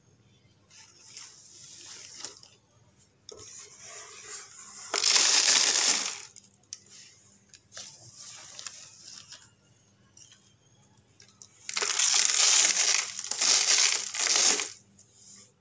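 Plastic bag crinkling and rustling as a hand scoops loose wood shavings out of it, with two louder stretches of crinkling about five seconds in and again near the end.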